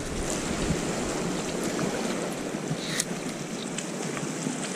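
Sea swell washing against the shore rocks: a steady, even hiss of surf, with a light click about three seconds in.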